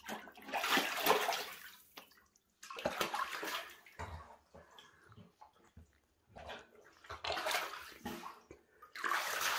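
Shallow water in a tiled shower tray splashing as a puma paws and swipes at small crucian carp swimming in it. It comes in four splashy spells of one to two seconds each, with short quiet gaps between them.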